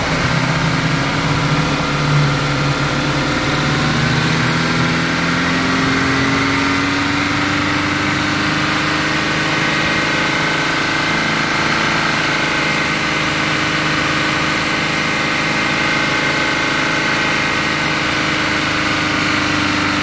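Car engine held at about 2500 rpm, running steadily, its pitch creeping up slightly over the first several seconds and then holding. The engine has a cylinder that is not firing properly and runs rough.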